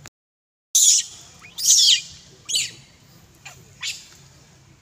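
Four loud, sharp, high-pitched animal calls over about three seconds, each a quick downward sweep in pitch. They follow a brief gap of silence near the start.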